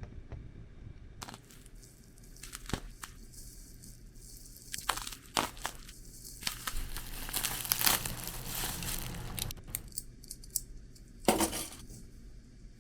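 Packaging being handled and opened: irregular crinkling and tearing, with a few sharp clicks and light clinks, busiest in the middle.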